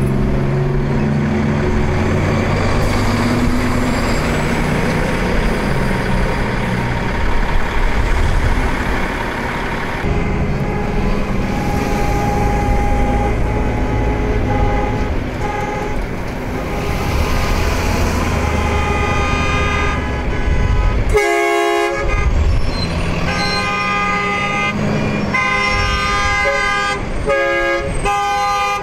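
A procession of tow trucks driving past one after another, their engines running. In the last third their horns sound in several long blasts.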